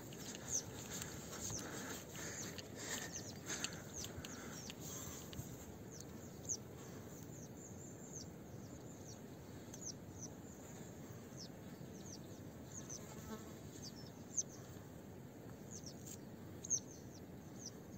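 Faint outdoor ambience: scattered short, high chirps, each falling in pitch, from small wildlife, over a steady faint hiss. The chirps come thickest early on and then more sparsely.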